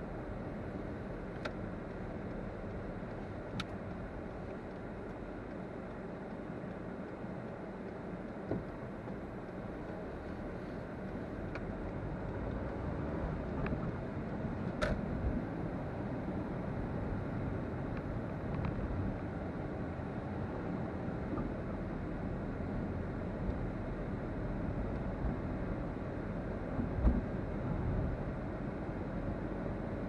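Car being driven: steady road and engine noise, with a few brief clicks and a knock now and then.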